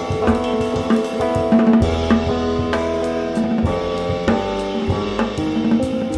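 Jazz trio playing: electric guitar lines over upright bass, with a drum kit keeping time on cymbals and snare.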